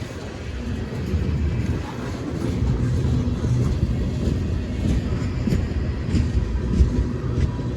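CSX manifest freight train rolling past at low speed: a steady low rumble of the cars, with a few light wheel clicks over the rail joints.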